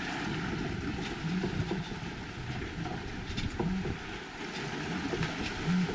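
Steady rush of wind and water aboard a sailboat under sail in light wind, with a few faint knocks.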